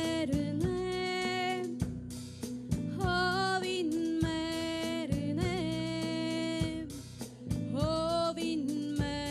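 Live band music: a woman sings long held notes, some wavering, over drum kit, electric guitar and bass guitar.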